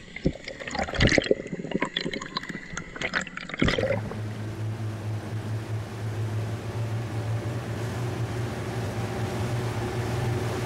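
Underwater water noise with irregular clicks and knocks from a diver's camera. About four seconds in it cuts abruptly to a steady low hum.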